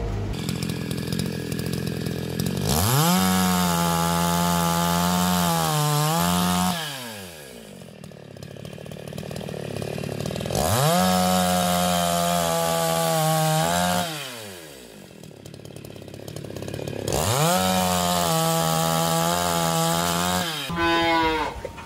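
Two-stroke petrol chainsaw revving up and cutting through wooden boards three times, each cut a steady high drone that sags a little under load. Between cuts it drops back to idle.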